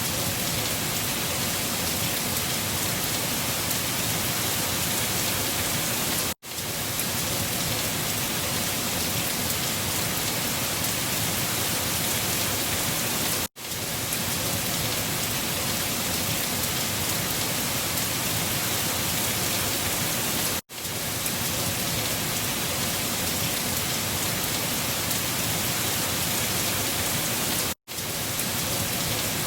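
Storm ambience: a steady, even rushing hiss that drops out for a split second four times, about seven seconds apart, the mark of a short recording played on a loop.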